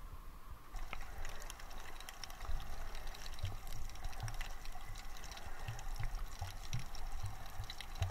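Water sloshing and bubbling around a camera held just below the surface by swimming snorkelers, with many crackling clicks. From about three seconds in there is a run of low dull thumps.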